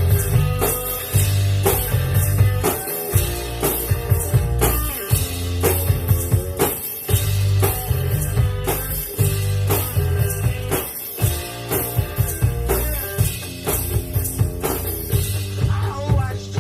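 One-man band playing rock music live on homemade instrument machines: guitar and bass picked with the thumbs over foot-operated drums, with a steady, driving drum beat.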